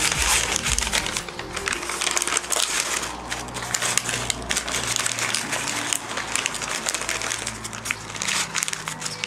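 Butcher paper crinkling and rustling as it is folded and scrunched by hand into a parcel, over background music.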